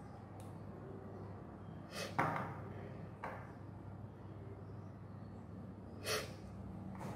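Small craft items handled on a wooden table: a small paint bottle and a plastic LED bulb picked up and set down. There is a sharp clack about two seconds in, a lighter click soon after and another clack about six seconds in, over a steady low hum.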